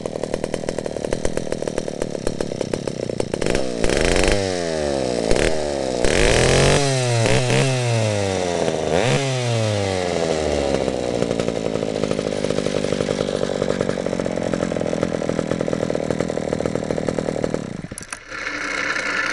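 Vintage Pioneer 2460 Super two-stroke chainsaw idling, then revved several times with the throttle, the pitch rising sharply and falling back each time, before settling to a steady idle. The engine cuts off near the end, followed by a short stretch of handling noise.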